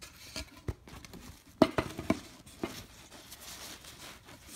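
Hands handling a wooden board and the fabric seat of a folding lounge chair: rustling with a few light knocks and clicks, the sharpest about one and a half seconds in.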